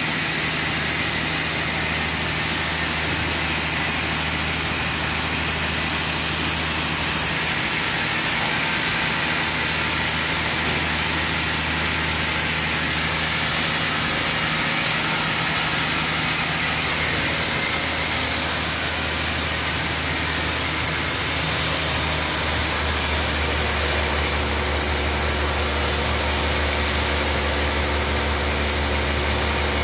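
Large bandsaw sawmill machinery running steadily: a continuous low hum with a hiss over it. The low hum shifts and grows stronger about two-thirds of the way through.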